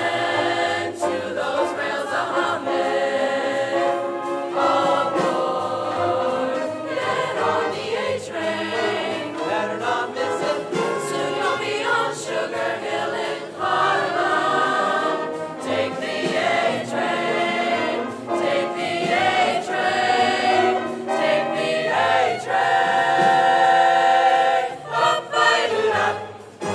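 A high school choir singing a song in multi-part harmony.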